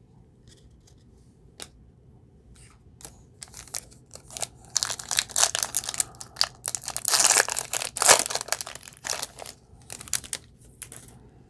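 Foil trading-card pack wrapper being torn open and crinkled by hand: a few sharp crackles, then a dense stretch of crinkling in the middle, then more scattered crackles.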